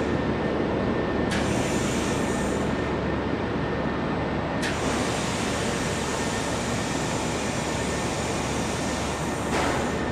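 Handheld laser welding machine running during a weld on aluminum: a steady hiss and hum, with a sharp click three times as the high hiss switches on or off.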